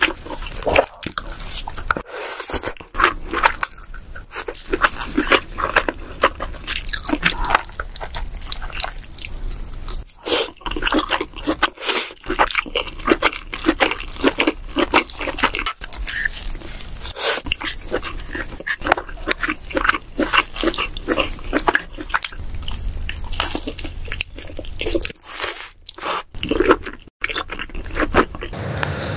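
Close-miked eating of king crab: a steady run of chewing, biting and wet mouth sounds on crab meat, mixed with crackling clicks as the crab's shell is pulled apart.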